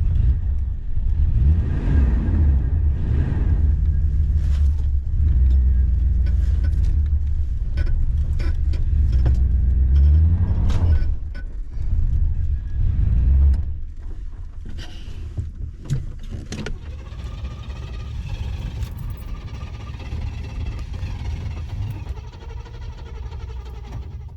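Chevy car's engine running, its revs rising and falling, loud and deep for the first half; about thirteen seconds in it drops to a much quieter, steadier running sound.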